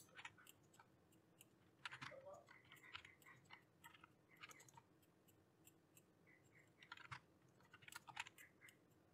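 Faint, scattered clicks of a computer keyboard and mouse, several irregular taps a few seconds apart over low room tone.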